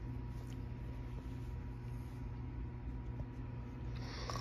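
Quiet room tone: a steady low hum with faint hiss and a few faint clicks. Near the end a brief band of higher hiss comes in.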